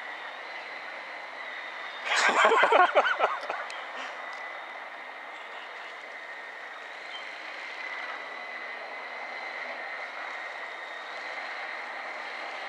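Steady high whine of the Ocean Queen 2 RC speedboat's water-cooled electric motors as it runs across the water. About two seconds in, a loud crackling burst lasting just over a second rises above the whine.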